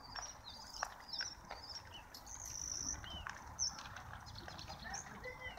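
Small birds chirping in quick, repeated high phrases over a low steady rumble, with scattered sharp crackles from burning grass and brush.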